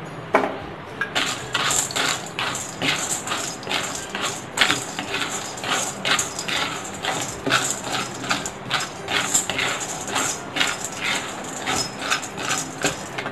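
A wooden spatula stirs dry sandge (sun-dried lentil dumplings) in a kadhai, scraping the pan and knocking the small pieces about in quick repeated strokes, about two a second. The dumplings are being lightly roasted in a little oil.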